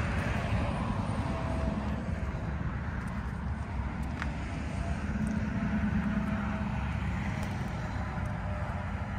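Steady outdoor rumble of distant road traffic, swelling briefly about five seconds in.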